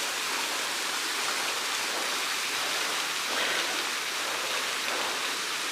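Waterfall's steady rushing hiss of falling water.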